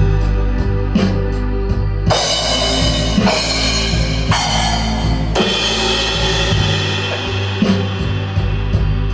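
Blues-rock band playing live: drum kit keeping a steady beat, with bass and electric guitar holding low notes. Cymbals crash and wash loudly from about two seconds in to just past five seconds.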